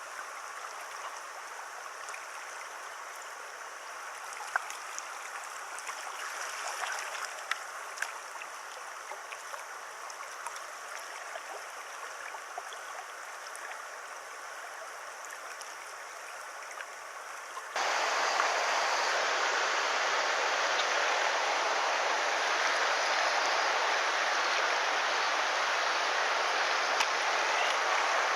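River water rushing steadily over a shallow run. About eighteen seconds in, it becomes abruptly louder and stays that way.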